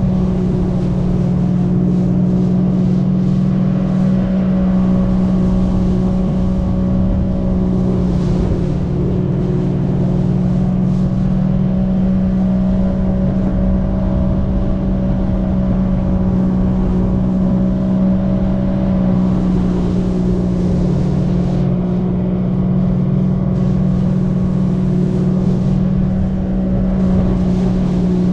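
Jet ski engine running steadily at speed, with rushing water and spray from the hull and wake.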